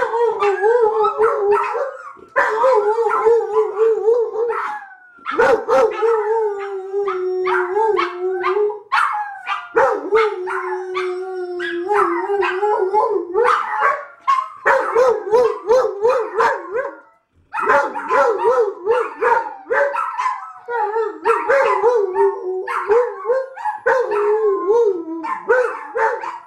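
A Labrador mix and two small dogs howling together in long, wavering notes, with short barks and yips mixed in; the chorus breaks off briefly several times and starts up again. They are howling in protest at a package delivery.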